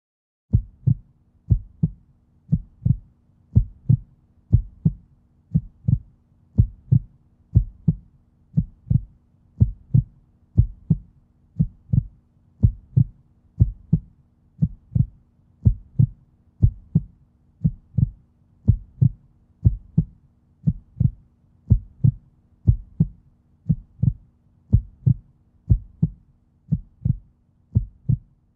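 Heartbeat sound: paired low thumps, a lub-dub about once a second, repeating evenly over a faint steady low hum.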